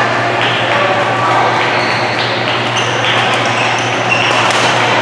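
Badminton court noise: sneakers squeaking on the court floor in short high chirps, and a sharp racket-on-shuttlecock hit near the end, over the steady din of a big sports hall.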